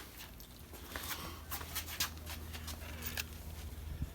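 A handful of irregular light taps and clicks from a small hammer setting brass rivets on a Model T transmission band, over a low steady hum.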